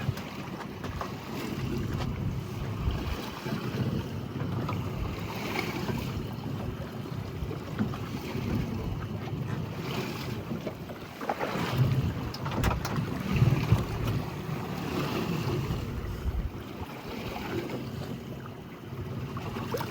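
Wind buffeting the microphone over the wash of sea water against a small boat, with the noise swelling for a few seconds past the middle.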